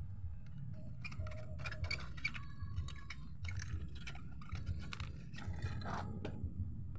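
Metal parts of a rusty kick scooter's folding hinge and steering tube being handled and taken apart: a quick run of clicks, clinks and scrapes, a few with a short ringing note, over a steady low hum.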